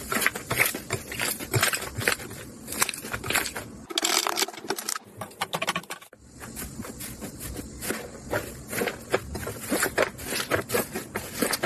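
Slime being squished and pressed by hand, giving many small irregular wet pops, clicks and crackles, with a short lull about six seconds in.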